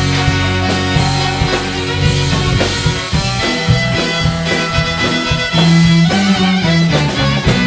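Klezmer-punk band playing live: drums, bass, guitar and violin in a loud, dense passage with a steady drum beat.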